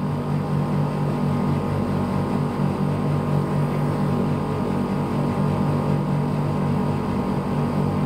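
A Surrey split air conditioner's outdoor unit running in heating mode on R410A: a steady, even hum from the compressor and fan.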